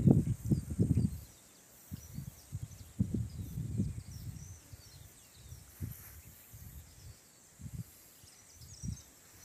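Wind buffeting the microphone in uneven low rumbles, strongest in the first second and again around three to four seconds in, with faint bird chirps high above.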